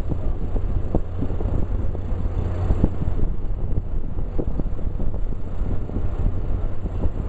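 A ferry's engine idling at the dock with a steady low rumble.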